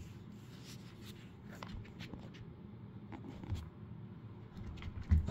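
Faint rustling and scuffling with scattered small clicks and a couple of soft thumps, from a dog playing with a rope toy.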